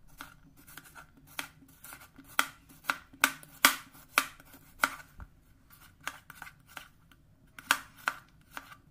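A kitchen knife chopping on a cutting board in quick, irregular strokes, about two a second, with a few louder ones.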